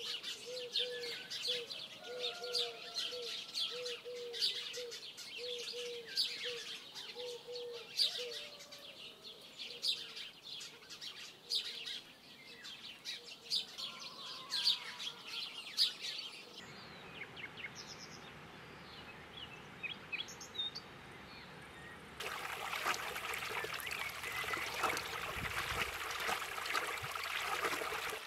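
Small birds chirping busily, with a low cooing call repeated about twice a second through the first several seconds. About 22 seconds in, water pouring from a pipe into a shallow pool takes over as a steady splashing rush.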